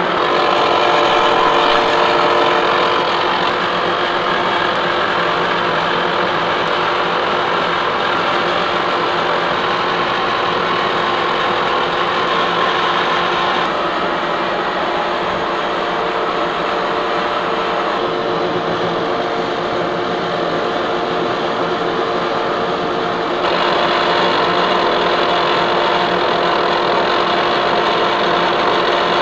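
Lucas horizontal boring mill face-milling a heat exchanger plate on its final finishing pass: a steady machining whir with held tones. The sound shifts abruptly about halfway through and gets louder near the end.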